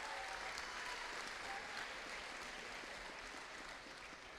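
Audience applauding, dying away over the few seconds.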